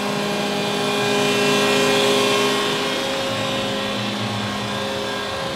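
Steady hum of running shop machinery, several steady tones under a hiss that grows louder about a second in and eases back after about three seconds.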